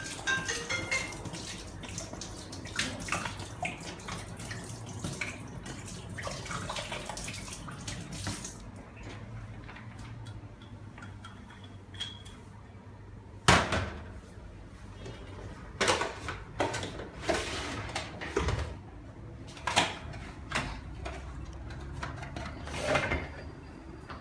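Whisky glugging out of a glass bottle into a stainless steel sink for about eight seconds. Then glass bottles knock and clink against each other and the steel drainboard as they are handled, a series of sharp knocks, the loudest about halfway through.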